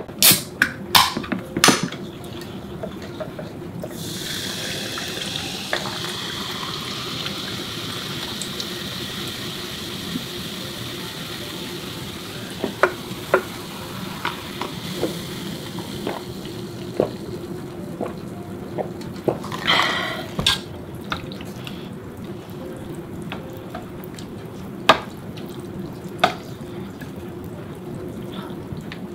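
A can of Coca-Cola opened with a few sharp clicks, then poured into a glass mug, the cola fizzing with a steady hiss that fades over about ten seconds. Light clinks and knocks of glass and utensils follow.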